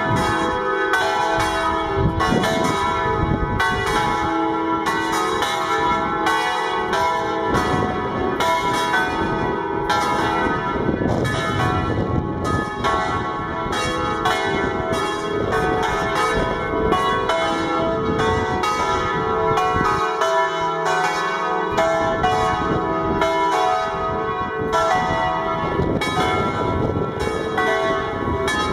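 Church bells of a parish church ringing in full plenum, all the bells together, their strikes overlapping several times a second and their tones ringing on without a break. They are rung to announce the Resurrection after the Easter Vigil.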